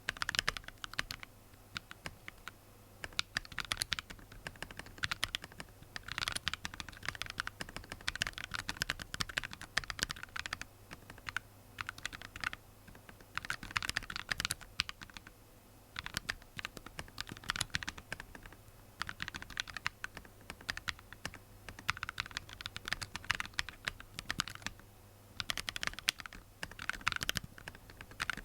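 Typing on a mechanical keyboard fitted with Jwick Vertex V1 factory-lubed linear switches (POM stems in PA66 housings): quick runs of keystrokes with short pauses between them.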